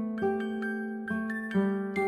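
Instrumental background music: single ringing notes, a new one about twice a second.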